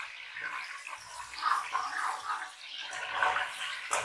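Cumin seeds sizzling and crackling in hot oil in a karahi, a metal spatula scraping through the oil as it is stirred, the sizzle swelling with each stroke.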